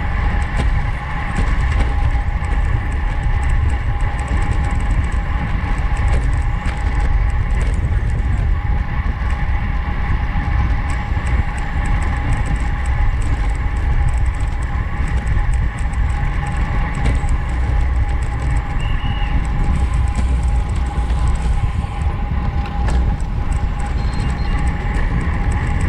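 Road bike ridden fast in a race: wind buffeting the on-bike camera's microphone, with a steady high whir from the bike running underneath.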